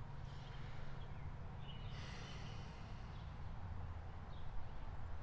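Open-air background: a steady low rumble, with a faint hiss that swells about two seconds in and a few faint high chirps.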